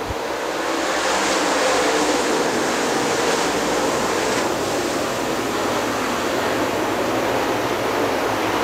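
A field of dirt-track race cars running at full throttle together just after the green flag. Their engines blend into a steady wash of noise.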